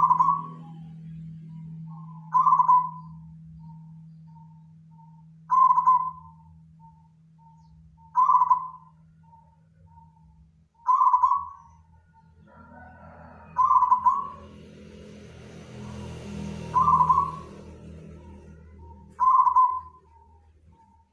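Local-type zebra dove (perkutut) cooing in a repeated song. A loud coo phrase comes about every two and a half to three seconds, eight times in all, with a string of short, soft notes between phrases.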